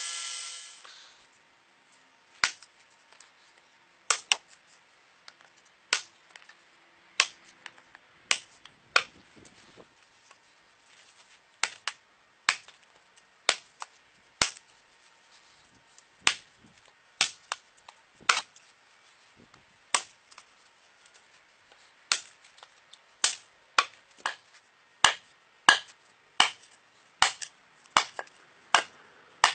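A hand-forged steel tomahawk chopping into a wooden post, sharp separate thwacks more than twenty times, coming faster in the second half. A belt grinder's whine dies away in the first second.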